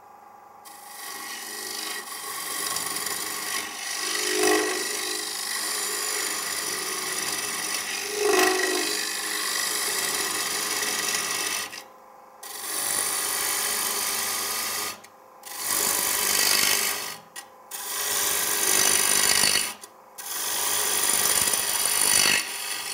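Easy Wood Tools carbide-tipped rougher cutting into a spinning kiln-dried cherry bowl blank on a wood lathe, taking material off quickly in roughing cuts. One long unbroken cut of about eleven seconds, then several shorter passes of two to three seconds each with brief breaks between.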